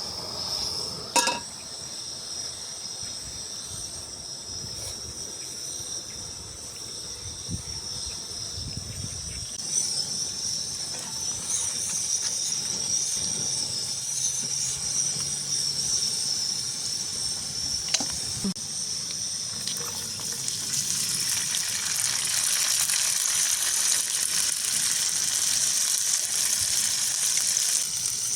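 Running water, louder and fuller from about twenty seconds in, over a steady high-pitched buzz, with a couple of sharp clicks.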